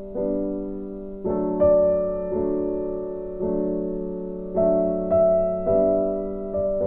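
Background piano music: slow, gentle chords struck about once a second, each ringing and fading before the next.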